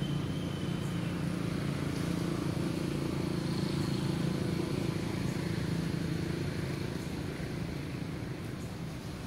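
A steady low engine hum, easing off slightly near the end.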